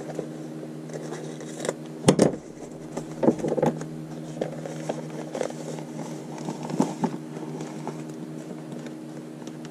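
Paper being folded and handled, with short rustles, crinkles and light taps, the loudest about two seconds in and again around three and a half seconds, over a steady low hum.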